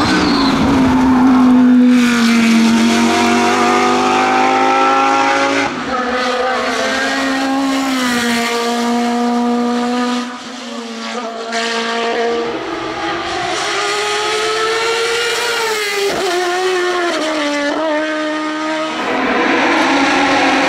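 Hillclimb race car engines at full throttle, one car after another. They rev high, hold, then drop in pitch at gear changes and braking, and the engine note changes abruptly several times as a new car takes over.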